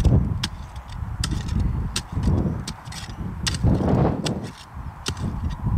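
Wind rumbling unevenly on the microphone, with scattered sharp clicks through it.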